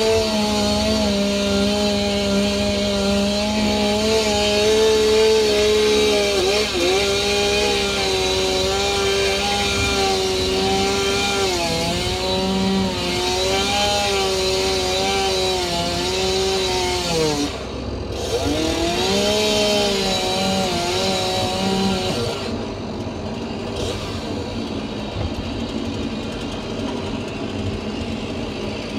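Stihl two-stroke chainsaw running at full throttle, cutting through a log, its pitch dipping and recovering as the chain bites into the wood. About two-thirds of the way through, the revs fall away and a lower, steadier engine sound remains.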